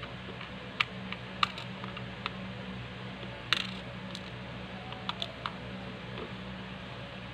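Small metal washers and steel tweezers clicking against screws and the plastic hub of a sanding disc: about seven short, irregular taps, the loudest about three and a half seconds in, over a steady low hum.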